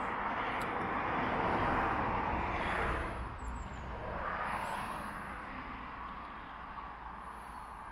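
Road traffic on a busy major road: the rushing tyre and engine noise of passing vehicles swells over the first few seconds, swells again at about four seconds as another vehicle passes, then fades away.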